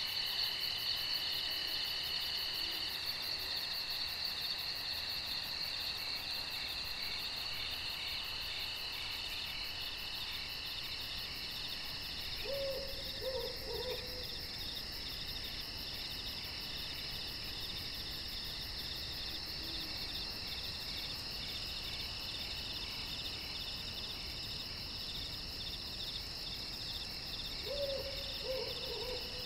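Night insect chorus, crickets among them, a steady high pulsing trill. Twice, about halfway and again near the end, a faint animal call of a few short falling notes sounds through it.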